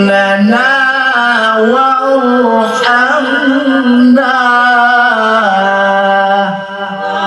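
A male qari reciting the Quran in melodic tilawah style into a microphone, amplified through loudspeakers: one long held vocal line that slides and wavers in ornamented turns, with a brief dip about six and a half seconds in.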